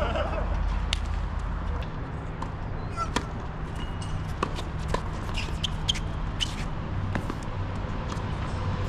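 Tennis balls being struck and bouncing on a court: a dozen or so sharp knocks at uneven intervals, over a steady low hum.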